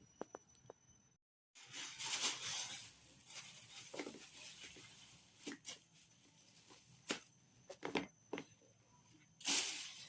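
Packaging rustling and being torn open by hand, with scattered sharp clicks and taps; the rustling is loudest twice, a couple of seconds in and near the end.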